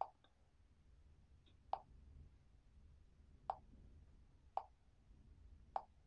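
Five short taps, one to two seconds apart, as a fingertip presses buttons on the touchscreen of a Xiaomi Redmi Go smartphone.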